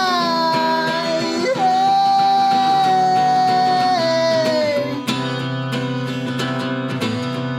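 A man singing one long held note over acoustic guitar. The note dips in pitch at the start, rises again about a second and a half in, and ends about five seconds in, after which the guitar plays on alone.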